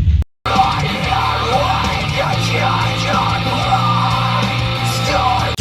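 Loud rock-style music, starting after a brief dropout near the start.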